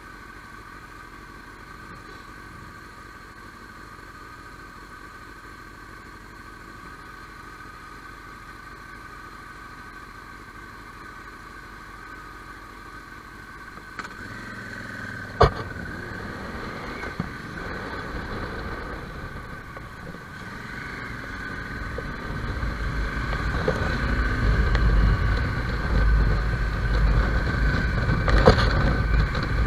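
Motorcycle engine idling steadily while stopped, with a faint steady whine. Past halfway there is a sharp knock, and the bike then moves off. Its sound grows steadily louder, with a deep rumble building over the last third.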